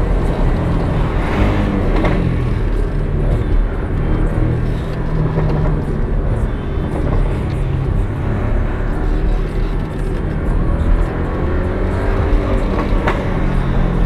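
Porsche 718 Cayman GT4's engine heard from inside the cabin while driving, its note shifting up and down with throttle and gear changes over steady road noise.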